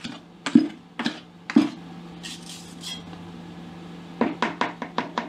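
A mixing tool stirring thick grout in a plastic bucket, knocking against the bucket three times, then scraping, then a quick run of taps near the end. A faint steady hum runs underneath.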